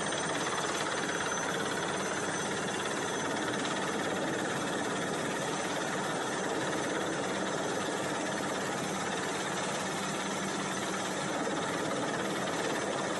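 Helicopter hovering low overhead, its rotor and engine running with a steady, unbroken noise, mixed with wind and rain rushing over the microphone.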